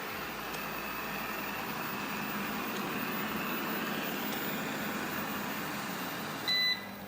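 Eufy robot vacuum running with a steady whir and no rattle, its roller brush held from sliding side to side by duct tape at the end. A short electronic beep sounds near the end.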